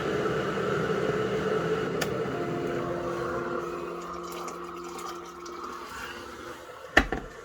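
Boiling water being poured into a bowl of chicken-and-rice puppy food, a steady pouring rush that slowly fades away. A sharp knock near the end.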